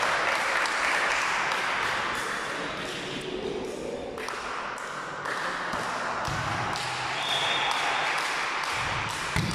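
Spectators' chatter and scattered clapping echoing in a sports hall, fading over the first few seconds as play resets between volleyball points, with a single thump near the end.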